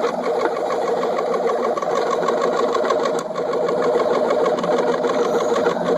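Plastic-extruding (FDM) 3D printer running a print: its stepper motors drive the nozzle and the build plate back and forth, giving a steady whine with fast, even chatter.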